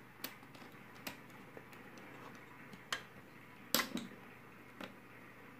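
A handful of short, sharp clicks and taps, about five spread out, the loudest about three-quarters of the way through: a screwdriver and wire being worked into the terminal of a miniature circuit breaker.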